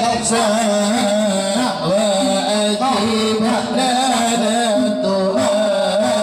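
A group of men chanting dhikr together in unison, amplified through a sound system, in long held, wavering melodic lines.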